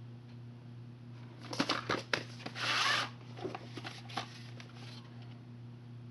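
A VHS cassette being slid out of its cardboard slipcase and handled. Several sharp plastic clicks and knocks, then a short rubbing scrape about halfway through, which is the loudest part, then a few lighter clicks.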